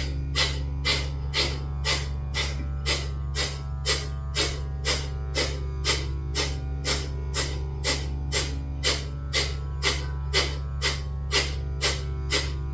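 Kapalabhati breathing through one nostril: sharp, forceful exhalations at about two a second, each a short rush of air. Underneath is a steady low musical drone.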